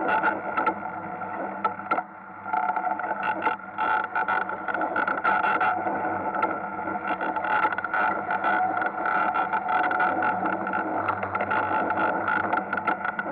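Ice kart driving on an ice track: its motor runs with a steady high whine, under constant rattling and scraping. The sound dips briefly about two seconds in.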